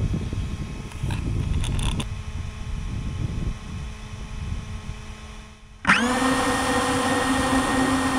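Low rumbling noise; then, about six seconds in, a DJI FPV drone's motors spin up suddenly into a steady, loud, multi-tone whine.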